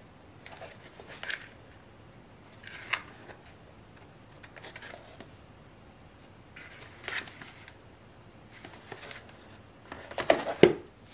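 Cardboard product box handled and turned over by hand, giving short scraping and rubbing sounds every second or two. Near the end the box knocks against the floor several times, louder than the rest.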